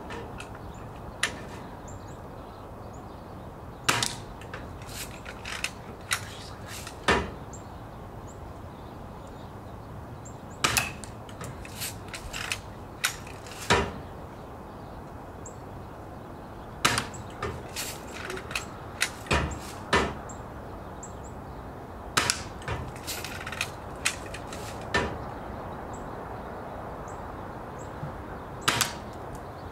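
BB gun being fired at plastic toy soldiers on a wooden rail: a string of sharp cracks and knocks from the shots and the BBs striking wood and plastic. They come at irregular intervals, some singly and some in quick runs of three or four.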